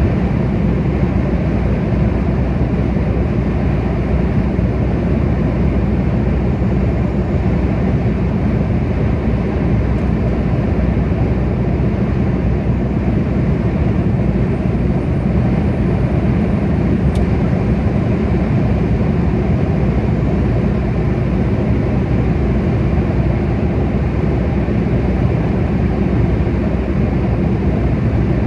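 Steady road noise of a car driving at motorway speed: tyres rolling on asphalt with engine and wind noise.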